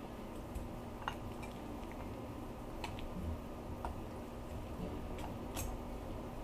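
A handful of scattered light clicks and taps, about six, irregularly spaced, over a faint steady hum.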